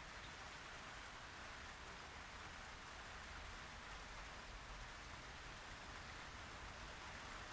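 Faint, steady hiss with a low rumble underneath, even and unchanging throughout.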